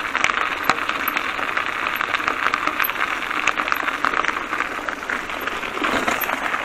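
A bicycle rolling along a leaf-strewn asphalt path, giving a steady, dense, irregular clicking and rattling from the bike and the gear mounted on its handlebars. The tyres run over wet fallen leaves.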